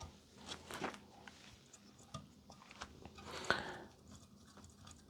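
Faint handling noises: scattered small clicks and brief rustles, with one sharper click about three and a half seconds in.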